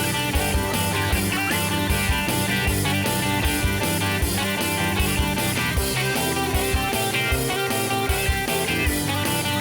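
Background music: a guitar-led rock track with a steady beat.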